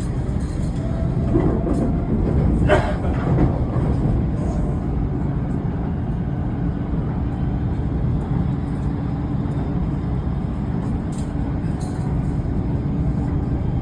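Steady rumble of a rapid-transit train running, heard from inside the car, with a short higher-pitched sound about three seconds in.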